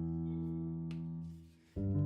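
Background music: a held instrumental chord fades out, and a new chord starts about three-quarters of the way in. A faint click is heard about a second in.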